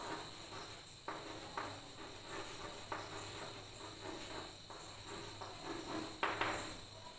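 Chalk scratching and tapping on a blackboard as words are written, faint short strokes at irregular intervals. A steady high tone runs underneath.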